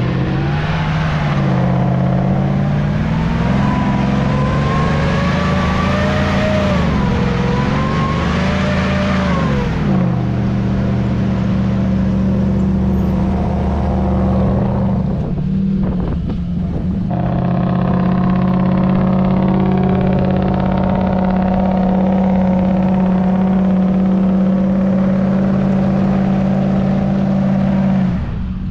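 Engine of a lifted, Chevrolet Corvair Lakewood-bodied off-road recovery rig revving under load as it tows a stuck pickup through soft sand on a recovery rope. The revs rise and fall for the first third, drop off briefly a little past halfway, then hold a steady high note until near the end.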